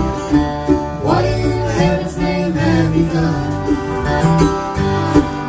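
Live country/bluegrass-style acoustic band playing, with strummed and picked guitar and a sung vocal line.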